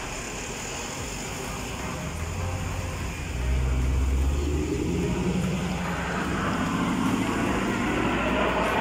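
Jet engines of aerobatic display aircraft flying over: a low rumble that grows louder about three and a half seconds in and stays loud, spreading into a broad rushing noise.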